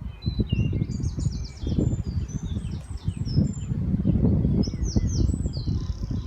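Birds chirping and singing in many short calls and trills, over a loud, gusting low rumble of wind buffeting the microphone.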